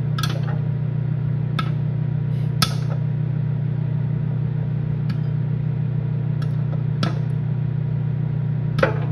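Microwave oven running with a steady hum while popcorn kernels loose in a bowl pop now and then: about six sharp pops spaced a second or two apart. The popping is tailing off as most kernels have already popped.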